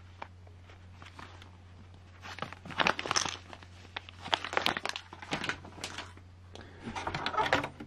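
Thin plastic zip-lock parts bags crinkling as they are handled, in several short bursts of rustling.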